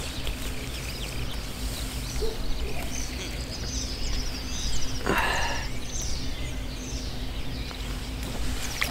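Small birds chirping and singing in the riverside trees over a steady low rumble of wind on the microphone, with one louder falling call or sweep about five seconds in.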